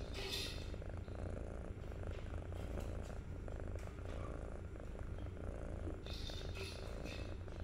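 A young kitten purring steadily while being stroked under the chin and on the neck, a low continuous rumble, with a brief higher rustling hiss about six seconds in.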